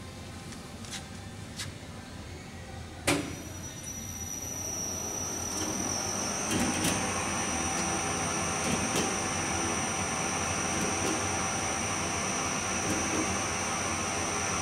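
A sharp click about three seconds in, then the 38-inch Spitfire double-sided polishing machine starts up: its running noise builds over a couple of seconds and settles into a steady hum with a high whine.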